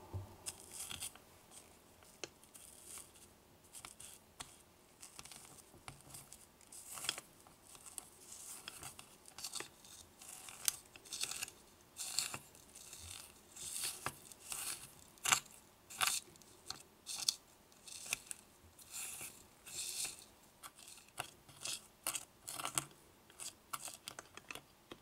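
A tiny silicone spatula mashing and scraping butter into granulated sugar in a miniature bowl, making short gritty scrapes and crunches, irregular, about one or two a second.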